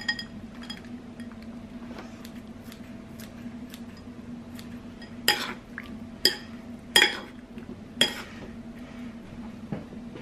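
Kitchenware clinking and knocking: light ringing clinks, then four sharper knocks about a second apart in the second half. A steady low hum runs underneath.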